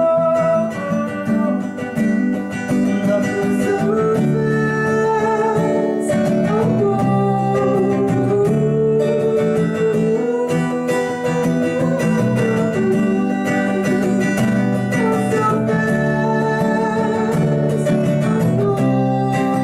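Live band playing an instrumental passage of a song, with guitar carrying it alongside a wavering melodic lead line.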